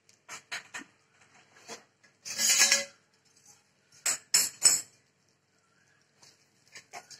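Flat metal spatula scraping and knocking against a steel kadhai as a thick mixture of roasted flour, ghee and jaggery is stirred. It gives a few quick clinks, then a loud scrape just over two seconds in, then three sharp knocks in quick succession about four seconds in, with lighter clinks near the end.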